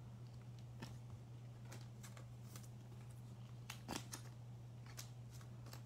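Trading cards being slid into thin plastic penny sleeves: faint, scattered plastic rustles and light clicks, the loudest about four seconds in, over a steady low hum.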